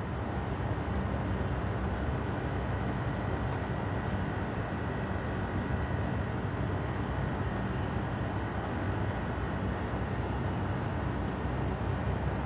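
Steady low background rumble with a faint thin high hum running through it.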